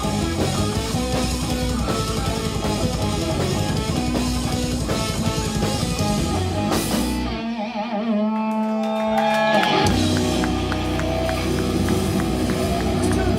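Live heavy instrumental rock from electric guitar, bass and drums. About seven seconds in, the bass and drums drop out for about two seconds, leaving held, wavering guitar notes, then the full band comes back in.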